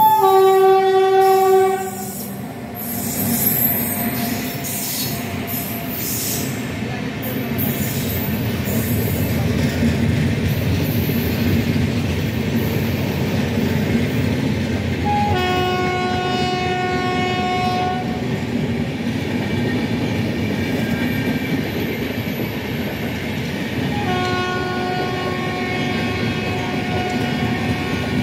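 Indian Railways electric locomotive passing at speed, sounding a loud horn blast of about two seconds. Then the steady rumble and clatter of its passenger coaches rolling past, with two further, fainter horn blasts about halfway through and near the end.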